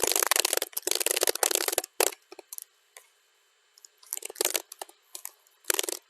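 Computer keyboard typing played at double speed: a fast, dense run of keystrokes, a pause of about two seconds, then a few scattered keystrokes and another quick run near the end.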